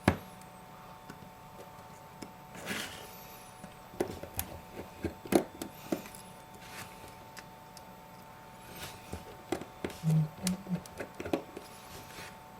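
Scattered small clicks and taps of a precision screwdriver and tools on an iPhone 5's metal home-button bracket as its two tiny screws are backed out, over a faint steady whine.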